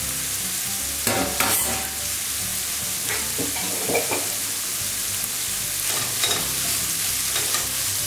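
Diced poultry breast and onion sizzling steadily in a non-stick frying pan, with a few scrapes of a spatula stirring through the pan.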